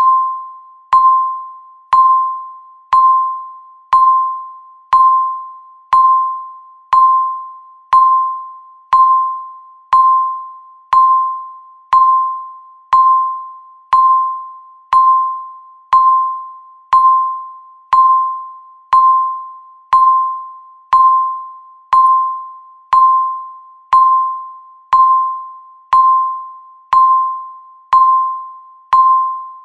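Electronic countdown-timer beep sounding once every second, about thirty in a row. Each beep is a single mid-pitched tone that starts sharply and fades away before the next one.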